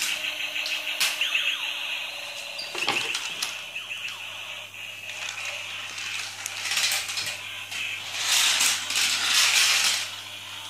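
Small plastic toy car's gear mechanism whirring and ratcheting, with sharp plastic clicks from the toys being handled, and louder clatter and rubbing about eight seconds in.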